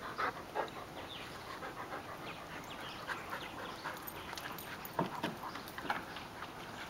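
A dog panting close by in quick, short breaths, with a couple of sharper clicks about five and six seconds in.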